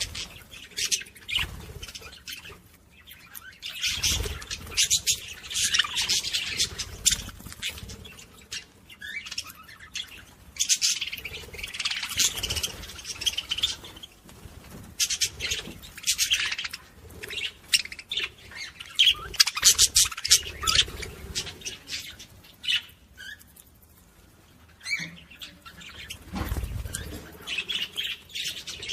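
Budgerigars chattering, with rapid high chirps, warbles and squawks coming in bursts of a few seconds with short lulls between. A couple of low thumps are heard, about four seconds in and near the end.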